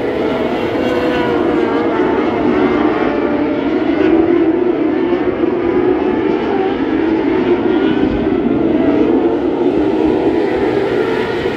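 Several non-wing micro sprint cars racing, their motorcycle engines at high revs. The overlapping engine notes rise and fall continuously.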